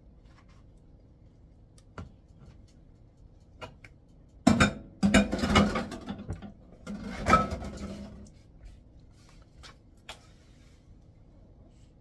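Silicone spatula scraping whipped topping out of a glass bowl, with glass bowls knocking and clattering together. The activity is busiest for a few seconds in the middle, with a few light clicks before and after.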